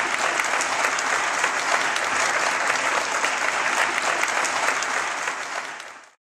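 Audience applauding, a dense, steady clapping that fades out near the end.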